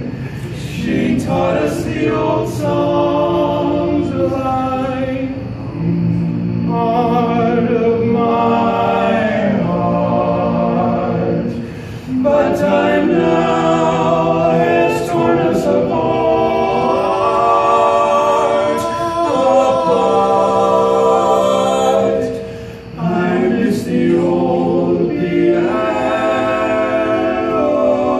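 Male barbershop quartet singing a cappella in close four-part harmony, with short breaks between phrases about twelve seconds in and again near twenty-three seconds.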